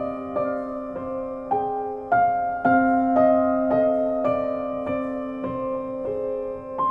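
Background piano music: soft notes played about twice a second over a held low note.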